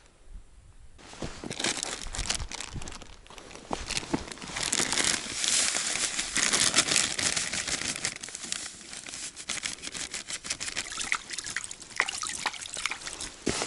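Dry groundbait poured from a plastic packet into a collapsible bucket: the packet crinkles and the crumbly mix trickles and hisses in, loudest in the middle. Near the end, light splashing as a hand reaches into the lake water beside the bucket to wet the mix.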